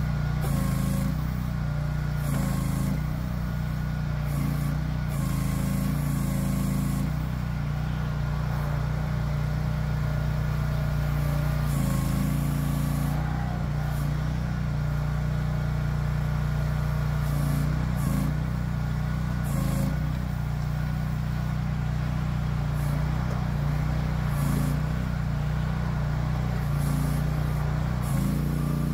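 The 2023 Agrotk QH12 mini excavator's Briggs & Stratton 13.5 hp gas engine running steadily, its note shifting briefly every few seconds as the operator works the boom and bucket hydraulics.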